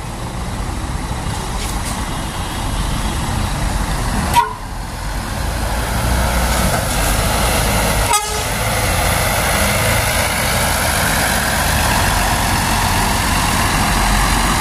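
Scania double-decker coach's diesel engine running as the bus pulls away and drives close past, its rumble and hiss growing louder from about six seconds in. A short sharp sound about four seconds in.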